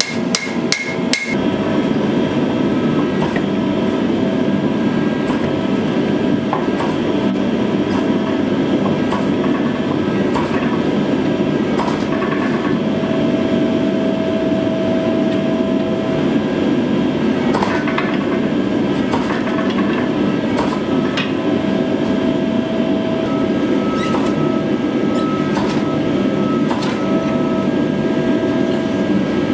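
A few quick hand-hammer blows on hot steel on the anvil, then a hydraulic forging press running with a steady mechanical drone as it works the red-hot blade blank, a clear tone in it coming and going, with occasional clicks.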